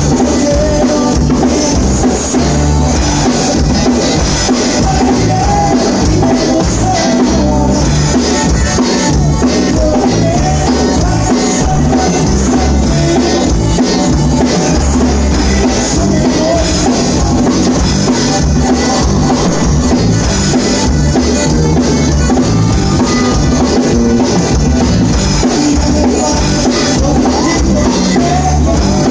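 A live conjunto band playing: button accordion carrying the melody over bass guitar, bajo sexto and drum kit, with a steady dance beat.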